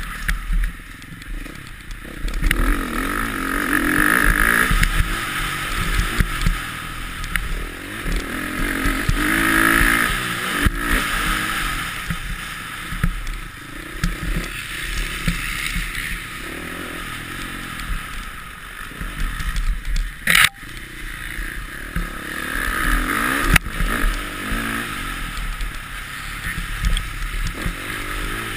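Motocross bike's engine, heard from the rider's onboard camera, revving up and down as it is ridden hard round a dirt track. There is a sharp knock about twenty seconds in.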